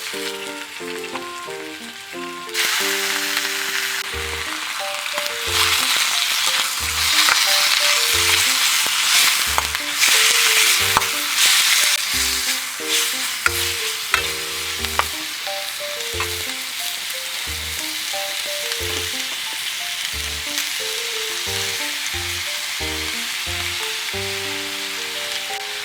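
Food frying in a hot iron wok: a sizzle starts suddenly about two and a half seconds in, grows louder with sharp clicks of stirring in the middle, then settles to an even sizzle.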